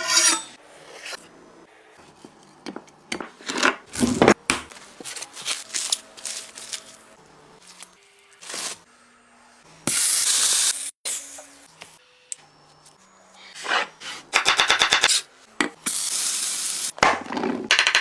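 Kitchen prep sounds: knocks and rubs of a chef's knife and a raw beef fillet on a wooden chopping board, then loud sizzling as the fillet goes into a hot oiled pan about ten seconds in, with another burst of sizzling later. Near the end, fast rhythmic knife chopping on the wooden board as button mushrooms are sliced.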